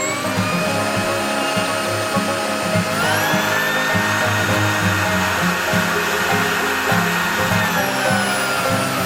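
Cordless stick vacuum's BLDC motor running with a steady high whine. About three seconds in it steps up to a higher pitch, the sign of a switch to a stronger power setting, and it glides back down near the end. Background banjo music plays underneath.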